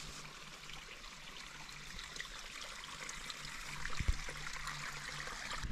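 Small mountain stream trickling over rocks, a steady water sound. A single low thump about four seconds in.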